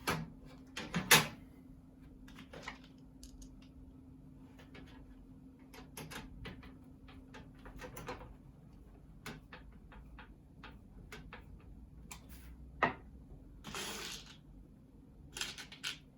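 Scattered clicks and knocks of a PC case fan and its screws being fitted into a computer case with a small Phillips screwdriver. There is one louder knock about a second in and a short scrape near the end.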